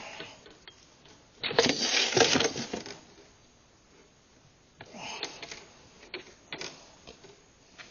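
Metallic rattling and clicking of a wire-framed fishing lure and tackle being handled as it is unhooked from a snakehead in a landing net. A loud burst of rattling comes about a second and a half in, a shorter one a little past the middle, then a few separate clicks.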